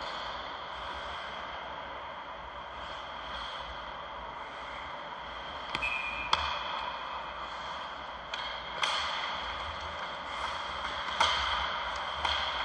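Ice hockey play: sharp clacks of sticks and puck, about five in all, loudest about six and eleven seconds in, over the steady background noise of the rink.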